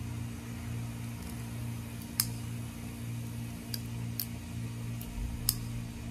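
Several short, sharp clicks from handling a folding knife and a small screwdriver while setting the pivot screw, the loudest about two seconds in and a few more over the next few seconds, over a steady low hum.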